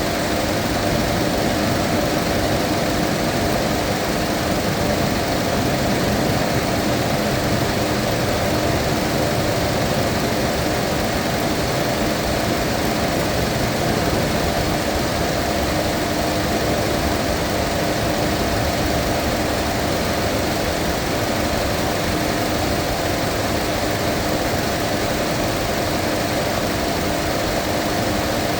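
Mazda 2.5 engine idling steadily at operating temperature while its cooling system is bled of air, with a steady hum.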